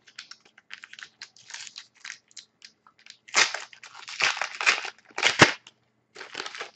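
A 2010-11 Panini Zenith hockey card pack's wrapper being torn open and crumpled by hand: irregular crackles, loudest about three and a half to five and a half seconds in.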